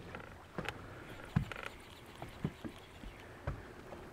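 Small waves slapping against the hull of a small boat: irregular soft knocks and splashes about once a second over a faint steady wash.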